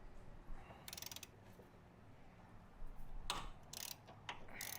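Socket ratchet clicking faintly in several short bursts as it is swung back and forth, breaking an engine mount bolt loose.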